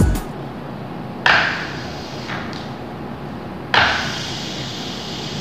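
Two sharp knocks, about two and a half seconds apart, from hard objects being handled and set down on a workbench, each with a brief ring, with a fainter knock between them.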